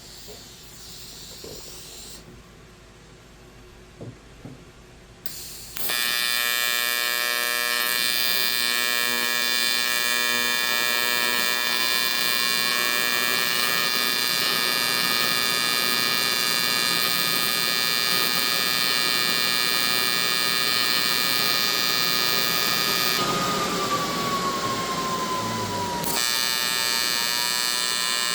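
AC TIG welding arc on aluminum, buzzing steadily; the buzz starts about six seconds in after a few light knocks. One tone in the buzz rises, holds, dips and rises again, which fits the current being changed at the foot pedal.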